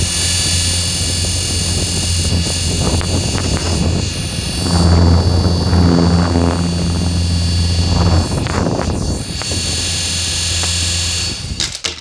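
Small toy helicopter's electric motors and coaxial rotors spinning: a steady high whine over a low hum, louder for a few seconds in the middle, then dying away just before the end as the rotors stop.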